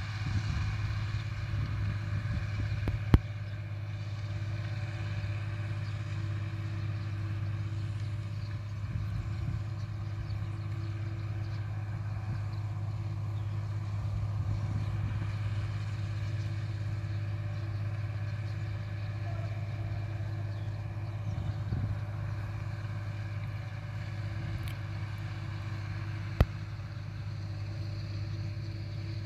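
Steady low drone of a tractor engine working under load while plowing, heard from afar, with two sharp clicks, one about three seconds in and one near the end.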